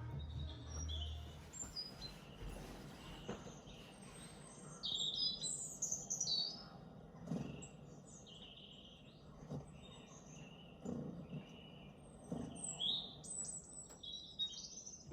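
Small songbirds chirping and trilling, many quick high chirps and short phrases in a busy run, played from a bird video for a pet to watch. A few soft low knocks come in the second half.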